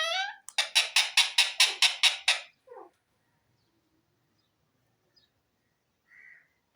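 Alexandrine parakeet calling: a rapid run of about ten repeated pitched notes, about five a second, lasting about two seconds. After a pause, one faint short note comes near the end.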